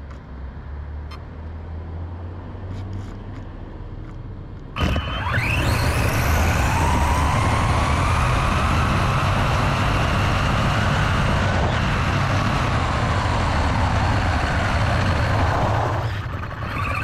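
3D-printed RC car's motor and gearing whining under full throttle, with rushing wind and road noise, starting suddenly about five seconds in. The whine climbs in pitch as the car speeds up to about 30 mph, holds, then falls away as it slows near the end.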